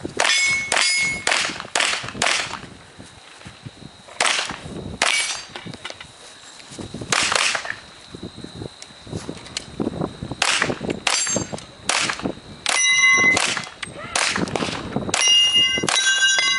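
A string of .40 S&W shots from a Glock 35 pistol, fired at an uneven pace with a few short pauses, each hit on a steel target answered by a ringing clang. The shots and ringing come thickest in the last few seconds.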